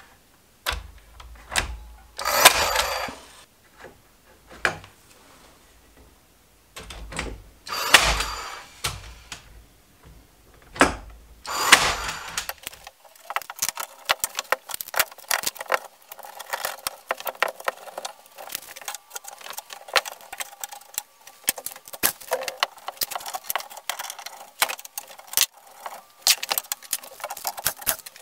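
Craftsman cordless nailer firing nails into a clamped plywood table frame, three separate shots in the first dozen seconds. After that comes a long run of quick light clicks and clatter as bar clamps and tools are handled.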